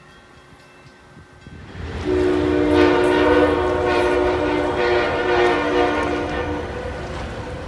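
Amtrak electric train's air horn sounding a loud, long chord of several steady notes over the low rumble of the train, starting about two seconds in. Near the end the horn sounds again briefly.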